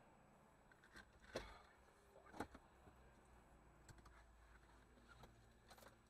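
Near silence broken by a few faint, short clicks, the two clearest about one and a half and two and a half seconds in.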